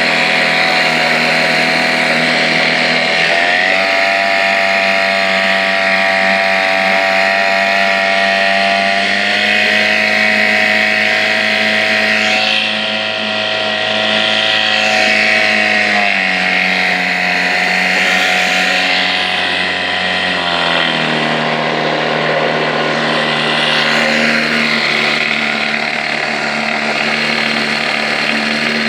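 Evinrude 4 hp two-stroke twin-cylinder outboard motor running, its speed going up about three seconds in and coming back down in two steps after about sixteen and twenty seconds.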